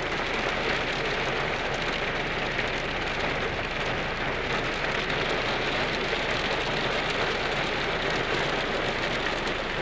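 Heavy rain pouring steadily onto rocky ground and scrub in a downpour.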